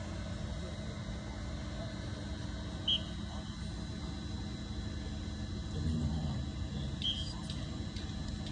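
Steady low rumble of background noise, with faint indistinct voices about six seconds in and two brief high chirps.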